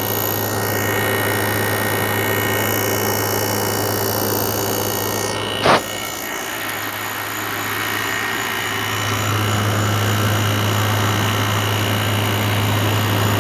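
Midea window air conditioner running, heard from its outdoor side: a steady low compressor hum with the condenser fan, with a single sharp knock about halfway through and the hum growing louder about two-thirds of the way in.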